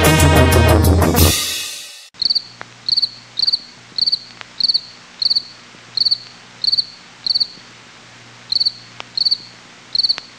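Brass-led upbeat music fades out in the first two seconds, then a cricket chirps: a short trilled chirp about every two-thirds of a second, with one longer pause in the middle.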